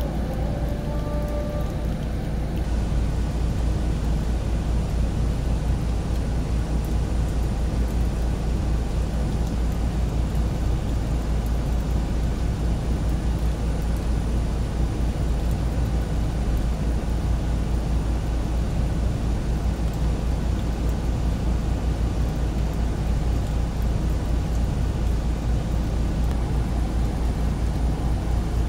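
Steady low rumble and hiss of a moving car's road noise, unchanging throughout.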